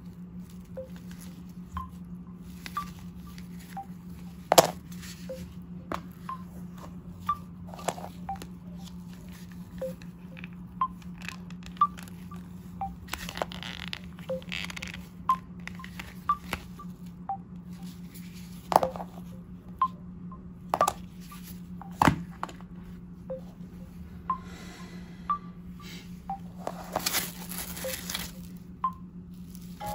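Smartphone ringtone of sparse, soft single notes at changing pitches, about one a second, over a steady low hum. Several sharp taps and two short plastic rustles from the phones and clear cases being handled.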